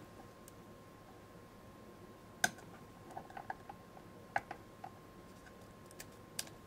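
Scattered small clicks and taps as the machined aluminium case of a camera and its circuit board are handled and eased apart. The loudest click comes about two and a half seconds in, a quick run of small clicks follows, and a few single taps come near the end.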